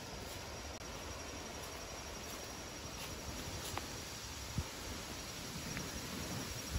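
Steady outdoor ambience with insects, crickets or katydids, chirring in a thin, unbroken high trill. One soft knock about two-thirds of the way through.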